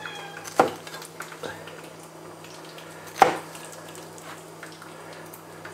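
Chef's knife cutting a slice of fresh pineapple on a cutting board, the blade knocking sharply on the board about half a second in and again about three seconds in, with a few lighter taps between.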